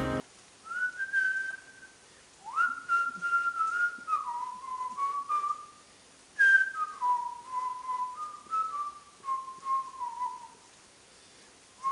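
A person whistling a tune: held notes that step and slide between pitches, in three phrases with short pauses between them.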